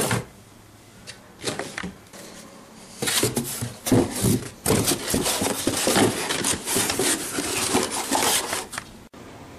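Corrugated cardboard boxes being handled and shifted: irregular scraping, rubbing and light knocks of cardboard, quiet at first and busy from about three seconds in.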